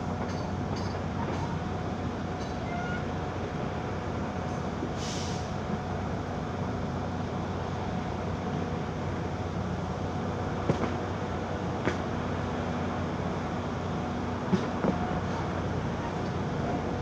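Backhoe's diesel engine running steadily as the machine travels, with a brief hiss about five seconds in and a few sharp knocks in the second half.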